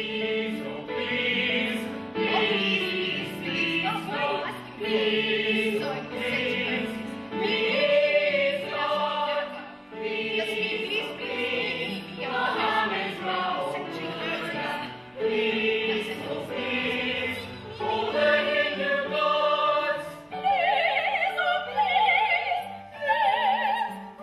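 Operatic singing over music, with long held notes and a wide vibrato in the last few seconds.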